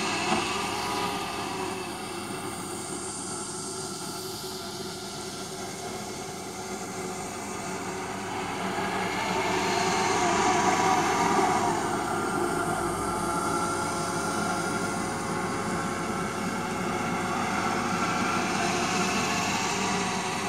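Neato robot vacuum running in spot-cleaning mode on carpet: a steady whir of its suction fan and brush, swelling louder about nine to twelve seconds in.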